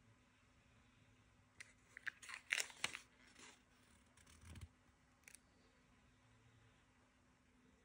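A plastic blister pack with a card backing, holding a tape dispenser, handled and turned over in the hand: a quick cluster of crinkles and clicks about two seconds in, then a few softer ones over the next three seconds.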